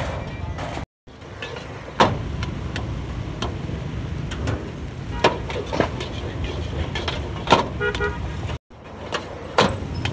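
Busy street ambience: a steady low rumble of passing motor traffic with scattered knocks and clatter, and a short horn beep about three-quarters of the way through. The sound cuts out completely for a moment twice.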